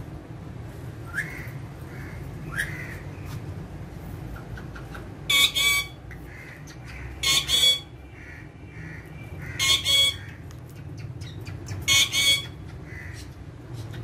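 Parakeets squawking: four loud harsh calls, each a quick double note, coming about every two seconds from about five seconds in, with a few fainter chirps before them. A steady low hum runs underneath.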